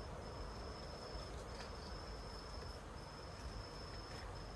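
An insect's steady high-pitched trill, breaking off briefly about every second and a half, over a faint, even rushing in the background that the grower takes to be rain approaching.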